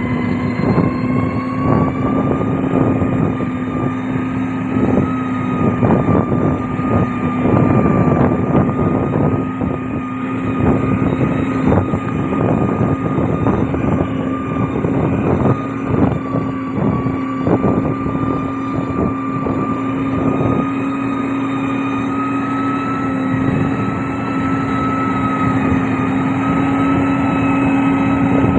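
Heavy road-construction machine's diesel engine running at a steady pitch, picking up a little about a second in, with irregular clattering and knocks from the machine working over it.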